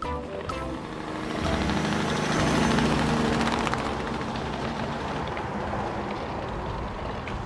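Truck engine running, growing louder about a second and a half in and easing back after about four seconds.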